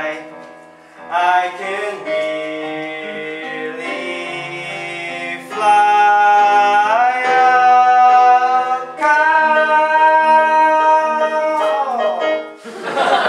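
A young male voice singing a show tune in long held notes over a sustained instrumental accompaniment. The last note ends shortly before the end, and audience noise of clapping and laughter follows.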